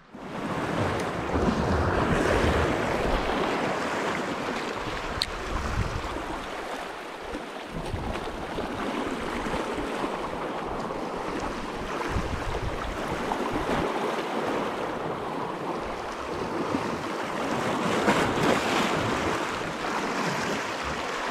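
Small sea waves washing in over low rocks at the water's edge: a steady rush of surf that swells and eases.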